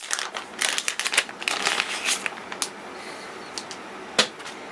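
Plastic packaging of a USB programming cable crinkling and rustling as it is handled, a quick run of crisp crackles, then a single sharp click about four seconds in.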